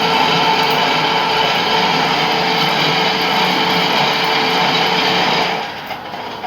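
Lathe running with a steady mechanical whine and noise, which drops sharply in level about five and a half seconds in.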